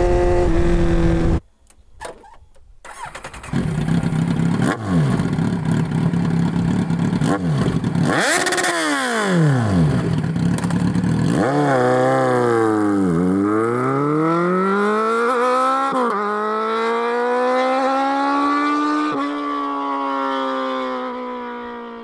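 Kawasaki Z1000's inline-four through a loud MIVV Double Gun exhaust: briefly heard running steadily at speed, then idling, a rev of the throttle, and pulling away hard, the note climbing through two upshifts before it fades into the distance.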